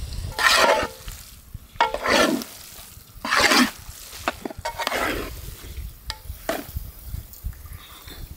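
Noodles being stirred in a cooking pot: four scraping strokes about a second and a half apart, with a few short knocks of metal between them, over a low rumble.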